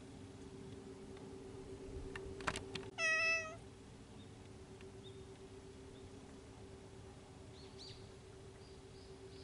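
A cat gives one short meow, about half a second long, about three seconds in, just after a few sharp clicks. A faint quick series of high chirps, like a small bird, comes near the end over a steady low hum.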